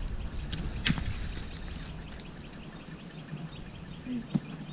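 Dry leaf litter and twigs crunching and rustling underfoot while walking through brush, with a few sharp cracks; the loudest comes about a second in.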